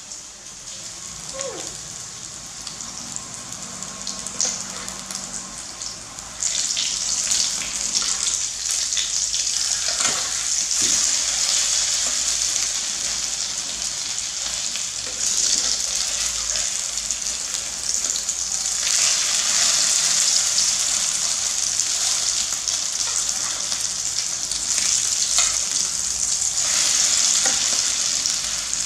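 Grated potato patties frying in shallow oil in a nonstick pan: a steady crackling sizzle that grows louder about six seconds in, with a few taps and scrapes of the spatula.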